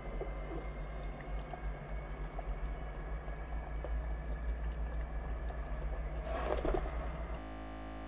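Steady low rumble of street traffic below, with a few faint ticks and a short flurry of pigeon wing flaps about six and a half seconds in. Near the end the sound turns flat and even.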